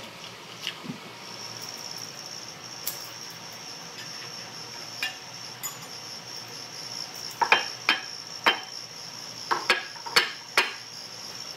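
Hammer blows on a tool set against an electric motor's end bell, about eight sharp metallic knocks in the second half, knocking the end bell loose to get at the bearings. A steady high-pitched tone runs behind them.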